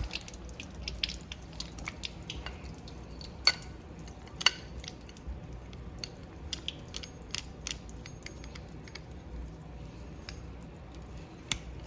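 Light scattered clicks and taps of a pipe and tools being handled, with sharper clicks about three and a half, four and a half and eleven and a half seconds in.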